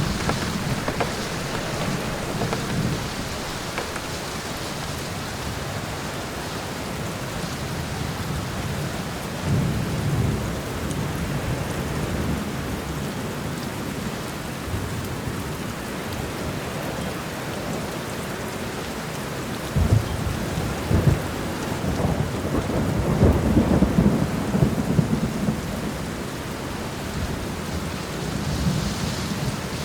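Steady rain falling, with thunder rumbling low several times. There is a sharper clap about two-thirds of the way through, followed by a longer, louder roll.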